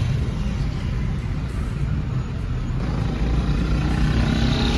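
Car running on the road, heard from inside the cabin: a steady low engine hum and road rumble that grows a little louder after about three seconds.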